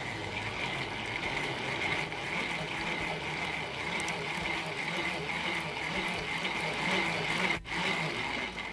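Tupperware Speed Chef hand-cranked mixer whisking eggs: a steady whirring of the spinning blades and gears with the beaten eggs sloshing inside the plastic bowl, breaking off for a moment near the end.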